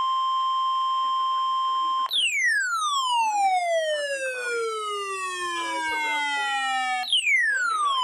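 Weather radio receiver's speaker sounding the NOAA 1050 Hz warning alarm tone, steady and loud, for about two seconds; then the radio's own alert siren: a long falling sweep, with a second sweep starting near the end. This is the receiver being set off by the weekly test of the alarm tone.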